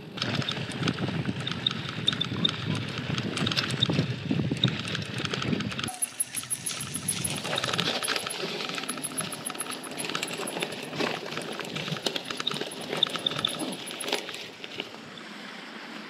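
Mountain bike clattering over a rough dirt path: a dense run of small rattles, knocks and clicks. A low rumble under it drops away about six seconds in.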